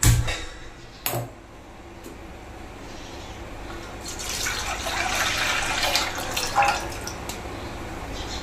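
Milk poured from a steel container into a brass pot, a splashing pour that swells for a few seconds about halfway through. A sharp knock comes at the start and a lighter one about a second later.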